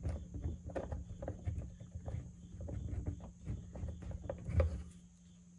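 A small bolt being turned with a screwdriver through a drilled hole in the lid of a hard plastic protective case, with light, uneven clicks and soft knocks of the tool and hands on the plastic that die away about five seconds in. A steady low hum runs underneath.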